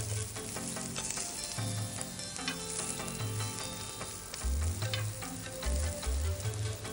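Okonomiyaki batter and shrimp sizzling on a hot electric griddle pan, a steady crackle of fine pops. Soft background music with a low bass line plays underneath.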